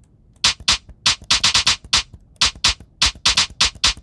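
Electronic snare drum samples from a drum machine or sampler, a quick irregular run of short, bright hits, many in tight clusters, as snare sounds are auditioned.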